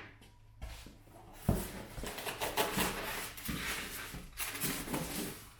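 Rustling and light knocks of packaging being handled as a subwoofer is taken out of its box, with a thump about one and a half seconds in.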